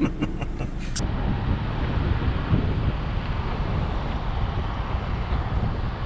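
Steady road rumble and wind noise of a moving vehicle, with a short stretch of talk cut off about a second in.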